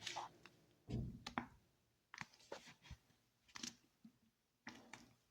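Faint, scattered clicks and soft knocks, about eight short separate sounds with quiet between them, the strongest about a second in.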